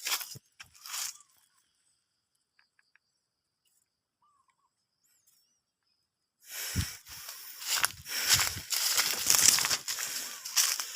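Close rustling and crunching, like dry leaves and undergrowth being pushed through, starting about six seconds in after a near-silent stretch that holds only a couple of faint short chirps.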